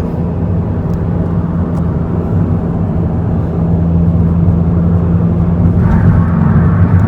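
Steady drone of engine and road noise inside the cabin of a moving 2017 Toyota Corolla iM, getting a little louder about halfway through.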